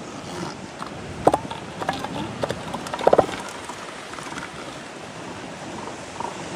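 Short calls from sea lions over steady surf and wind, a few about a second in and a loud cluster about three seconds in.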